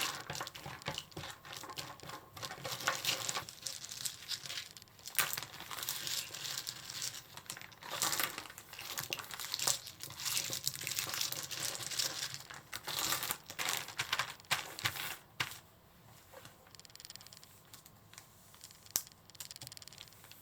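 Plastic zipper storage bag crinkling and rustling in irregular bursts as it is handled, quieter over the last few seconds, with one sharp click near the end.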